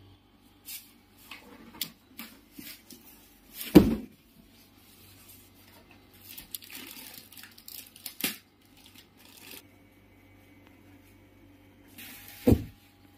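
Clear plastic wrapping and cardboard box flaps crinkling and rustling as a rolled, vacuum-packed foam mattress is handled and worked out of its box, with two heavy thumps, one about four seconds in and one near the end.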